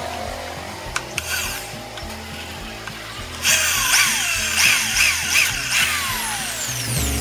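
Corded electric hand drill boring a hole through a square steel tube, getting loud about halfway in and run in several short bursts, its pitch sliding down between them. Background music plays underneath.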